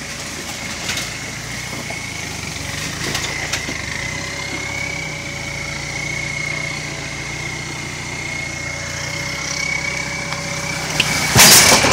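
Turbo diesel engine of an off-road Toyota 4Runner running steadily at low revs while crawling over rocks, with a high turbo whistle that rises in pitch near the end as the engine takes load. A few sharp knocks early on, and a loud noisy crunch about eleven seconds in.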